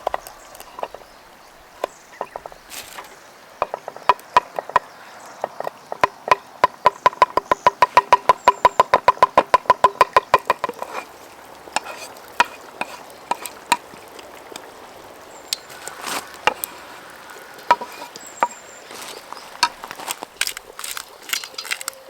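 Knife chopping on a cutting board: scattered single cuts, then a fast, even run of about seven strokes a second lasting some five seconds, then slower, irregular cuts again.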